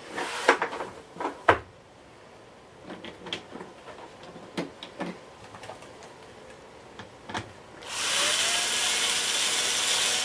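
A few clicks and knocks of handled plastic and tools, then about eight seconds in a cordless electric screwdriver starts and runs steadily, driving a screw into the vacuum cleaner's plastic casing.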